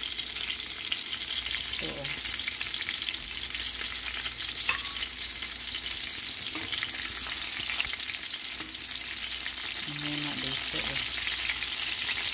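Boneless chicken thighs frying in hot oil in a stainless steel skillet: a steady sizzle with fine crackling.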